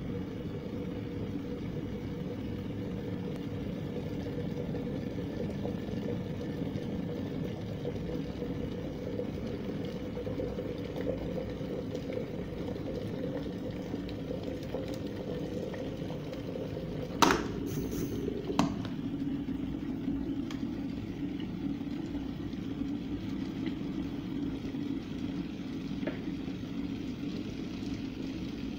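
Water heating to a boil in a stainless steel electric kettle, a steady low bubbling rumble. About 17 seconds in, two sharp clicks a little over a second apart as the kettle's lid is shut, and the rumble goes on after them.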